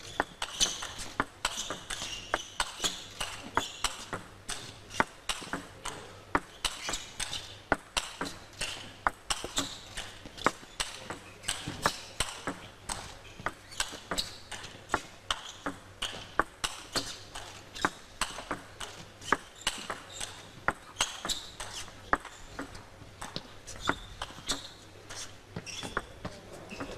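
Table tennis ball being hit back and forth in a long rally: sharp clicks of the ball off the rackets and table, about two or three a second.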